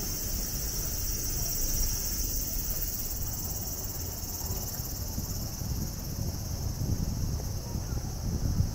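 A chorus of cicadas giving a steady, high, buzzing hiss, over a low, uneven rumble.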